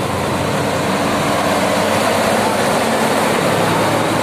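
Steady road-traffic noise with a heavy vehicle's engine running.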